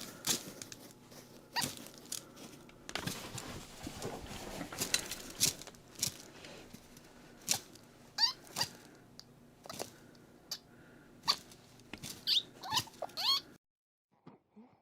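Guinea pig noises: a run of sharp clicks and patter, with short squeaky chirps that bend up and down in pitch around the middle and again near the end. The sound cuts off abruptly just before the end.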